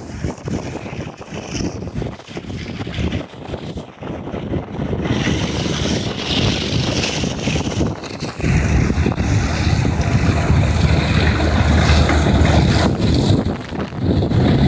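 Tractor engine running under load while its rear-mounted flail shredder chops standing maize stalks, with wind buffeting the microphone. The sound gets louder about eight seconds in, as the tractor nears.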